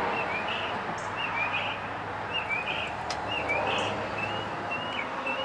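A small bird chirping over and over, short notes about twice a second, over a steady background hiss.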